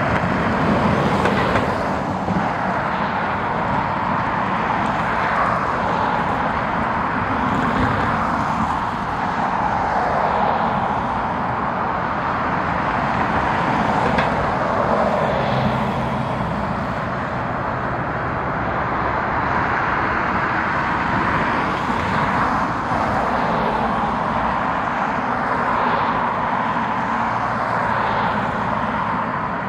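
Steady outdoor rushing noise that swells and eases every few seconds, with a faint low hum underneath.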